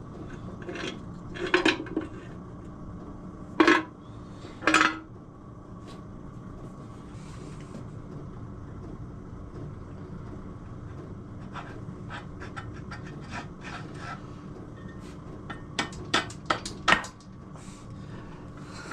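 Motorcycle engine and gearbox cases being handled and test-fitted together, metal on metal: three separate knocks in the first five seconds, then a quick run of clinks near the end. A steady low hum runs underneath.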